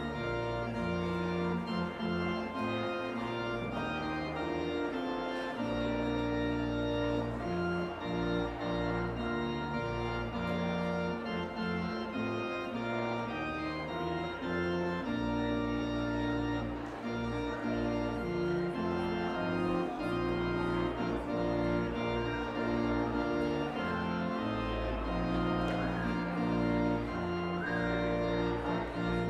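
Church organ playing a postlude after the benediction: sustained chords over held bass notes, changing every second or two.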